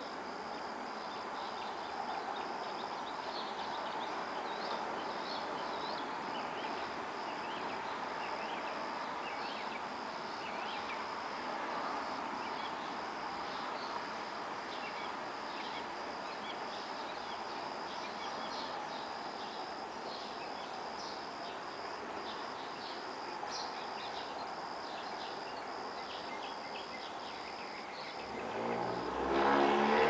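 Crickets trilling steadily, with scattered bird chirps, over a distant hum of traffic. About 28 seconds in, a motor vehicle approaches and passes close by, becoming the loudest sound near the end.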